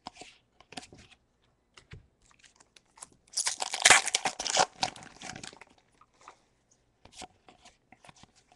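A foil Pokémon trading-card booster pack crinkling and tearing open, loudest for about two seconds in the middle. Light clicks of cards being handled before and after.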